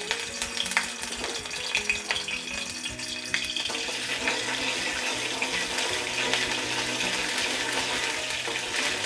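Ginger-garlic paste sizzling in a little hot oil in a karahi, with scattered clicks and scrapes of a spoon stirring it.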